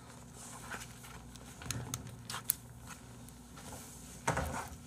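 Light handling noises at a table: a few small scattered clicks and taps, then a brief rustle near the end.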